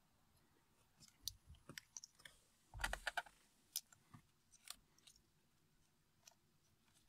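Faint, scattered clicks and light knocks of plastic wiring connectors being handled over a steering-wheel airbag unit, with a quick cluster of clicks about three seconds in.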